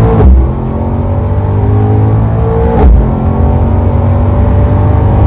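Mercedes-AMG GT 63 S 4-Door's 4.0-litre twin-turbo V8 heard from inside the cabin under acceleration. The revs climb steadily, break sharply at an upshift about three seconds in, then climb again.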